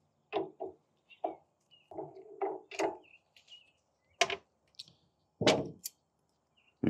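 Small metal pump parts and hand tools being handled and set down on a metal workbench: a string of sharp clicks and knocks spaced irregularly, with brief handling noise between them.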